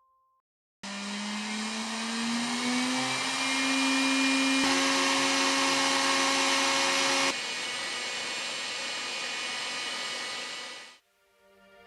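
Electric-driven 3D-printed turbocharger spinning at high speed: a steady whine over a rush of air, its pitch rising slightly at first. It jumps louder about five seconds in, drops back a couple of seconds later, and dies away near the end.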